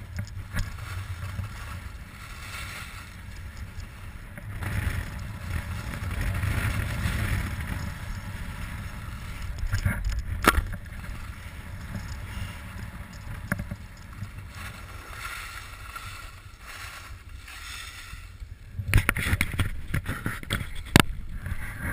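Sliding down a groomed ski run: snow hissing and scraping underfoot in swells that rise and fall with the turns, over a steady rumble of wind on the microphone. There is a sharp knock about halfway through and a cluster of knocks near the end.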